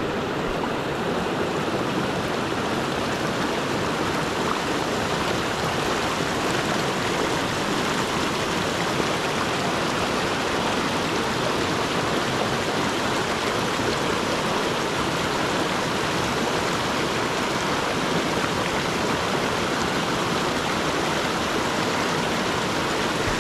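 Shallow, rocky river rushing over and between boulders in a small white-water rapid: a steady, unbroken rush of water.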